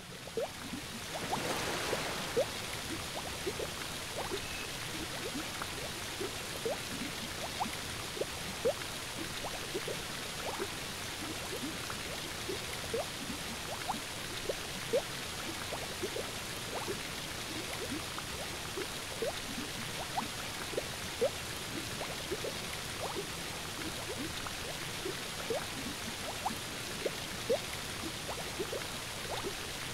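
Water trickling and splashing onto wet stone, a steady hiss with many small rising plinks of drops scattered irregularly throughout.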